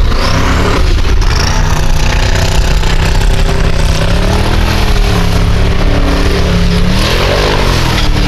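Formula Offroad buggy engine revving hard under load as it climbs, its pitch rising and falling several times, with a sharp rise and drop near the end.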